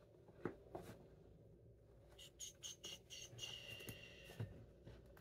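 Quiet handling sounds with a few soft taps, and a run of short high squeaks from about two seconds in, ending in one longer squeak.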